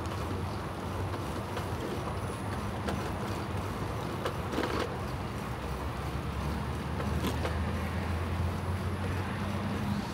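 Bicycle riding along a paved path: a steady rumble of wind on the camera microphone and tyre noise, with a few faint clicks.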